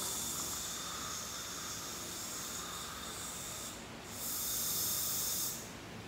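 Hiss from dental chairside equipment during a root canal treatment, in two long spells with a short break about four seconds in.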